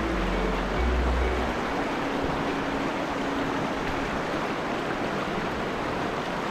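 Shallow, fast river rushing over rocks: a steady wash of running water.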